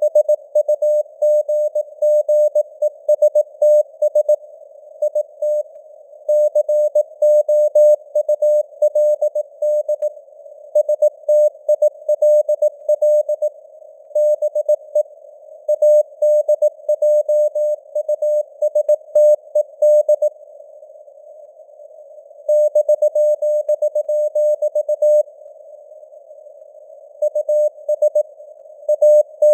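Morse code (CW) sent at 18 words per minute: a single steady mid-pitched tone keyed on and off in dots and dashes, with longer breaks between words. The tone sits over a faint hiss like a narrow-filtered radio receiver's band noise, which carries on through the gaps.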